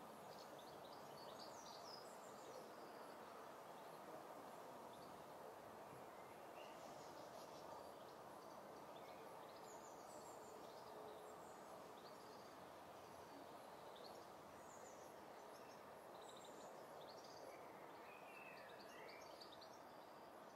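Near silence: a faint steady hiss with small birds chirping faintly now and then, a few short calls scattered throughout, with a cluster of falling chirps near the end.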